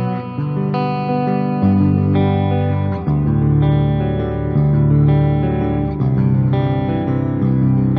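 Ibanez Axion Label RGD71ALMS seven-string electric guitar with Fluence Modern Ceramic pickups, played through an amp simulator: held chords and single notes changing about every second, reaching down into the low strings.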